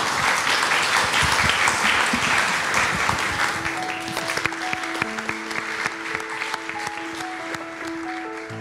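Audience applauding, the clapping slowly fading. Soft music with long held notes comes in under it about three and a half seconds in.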